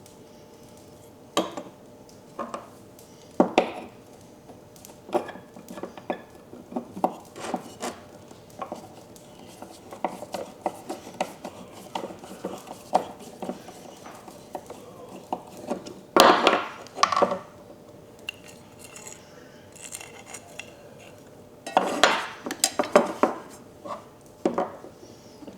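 Metal parts of a vintage Diamond Edge hand plane clinking and knocking as they are handled, in irregular single clicks. There is a longer clattering stretch a little past the middle and another near the end.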